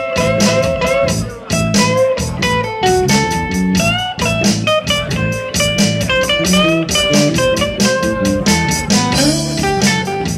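Live rock band playing an instrumental passage with no singing. An amplified electric guitar plays single-note lines with upward string bends over bass guitar and steady drums.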